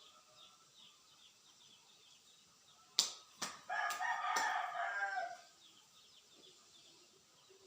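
A rooster crows once, about four seconds in, just after a few sharp clicks; faint high chirping runs underneath.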